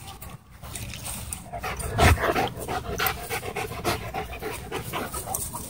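Dogs panting rapidly while running close by, with a thump about two seconds in.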